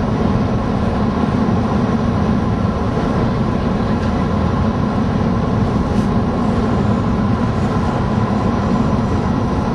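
Steady road and engine noise inside a moving van, an even rumble with hiss above it.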